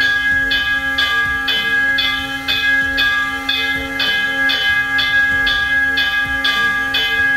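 Electronic bell-ringing sound effect from the aircraft-carrier model's sound module, struck about twice a second in a steady run. It is the warning signal that plays while the model's flight-deck elevator travels up and down.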